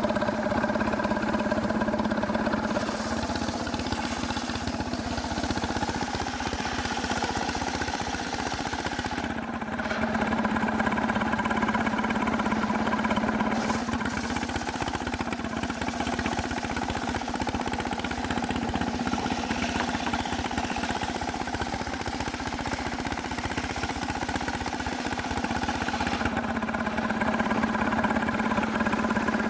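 Stihl two-stroke chainsaw running steadily at high speed, with a brief dip in its note about nine seconds in.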